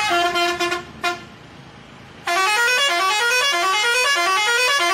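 Aftermarket musical bus horn sounding loudly: a short blast of held notes, a brief toot about a second in, then a quick rising run of notes repeated over and over for about three seconds. It is the kind of shop-bought add-on horn the officer calls needless noise pollution, since the factory horn is enough.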